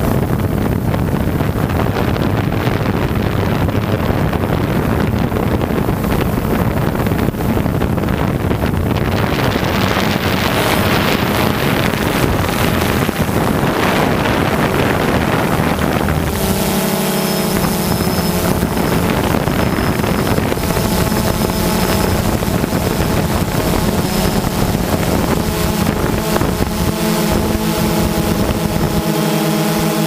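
DJI Phantom 2 quadcopter's motors and propellers buzzing steadily, heard through the on-board GoPro, with wind rushing over its microphone. About sixteen seconds in the sound switches abruptly to a steadier hum of several held tones.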